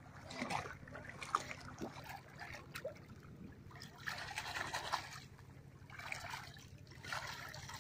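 A person splashing in shallow river water: swimming strokes, then hands scooping and slapping the water, coming in irregular spells of splashing and trickling.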